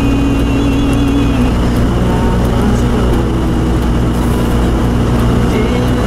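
Steady in-cabin drone of a 1990 Toyota 4Runner's 3.0 V6 and its tyres on a snow-covered road, with the heater blower on high, which makes it loud.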